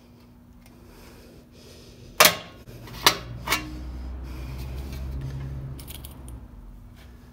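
Hand-lever punch clamped in a bench vise punching a rivet hole through sheet-steel armor plate: one sharp metallic crack about two seconds in with a short ringing tail, then two lighter metal clicks. A low rumble follows for about three seconds.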